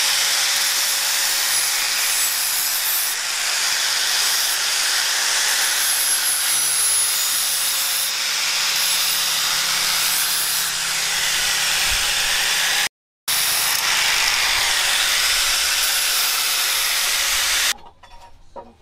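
Electric angle grinder with an abrasive disc grinding the face of a steel axe head: a steady hiss over a constant motor whine. It cuts out for a moment about 13 seconds in and stops near the end.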